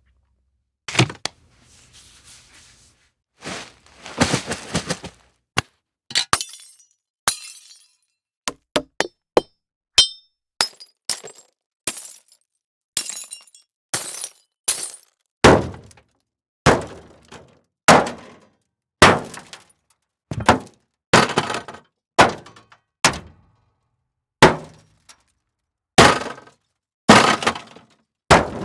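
A run of separate studio impact sound effects: thuds, hits and breaking crashes, each a sharp strike with a short decaying tail. They come sparsely at first, then one after another about once a second from about halfway through.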